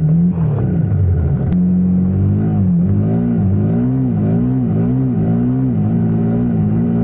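Honda CRF motorcycle engine running under way, its pitch steady at first, then rising and falling again and again with short throttle blips for a few seconds before settling near the end.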